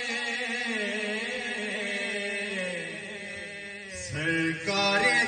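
Man reciting a naat (Urdu devotional poem) in a chanting style, drawing out a long note that slowly falls and fades, then starting a louder new phrase about four seconds in.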